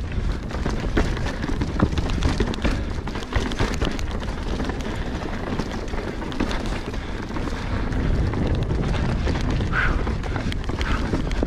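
Marin Rift Zone mountain bike riding down a rocky dirt wash: tyres crunching over sand and loose rock, with many quick knocks and rattles from the bike, and wind rumbling on the microphone.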